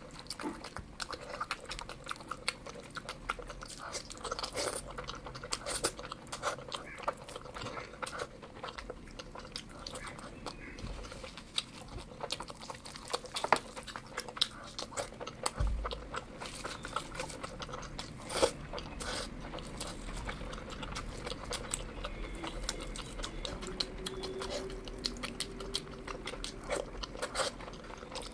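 A person chewing and biting food close to the microphone: eating curry and rice, with many quick, wet mouth clicks and smacks.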